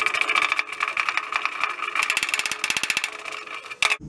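Arc welding on the Mini's boot steel panels, a steady dense crackle. It cuts off with a sharp click near the end.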